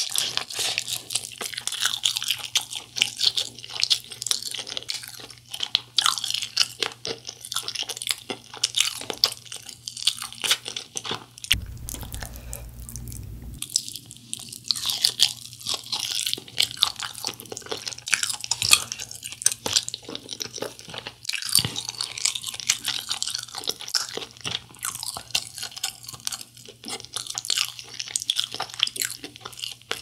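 Close-miked crunching and chewing of sauce-glazed fried chicken, bite after bite, with a brief lull about twelve seconds in.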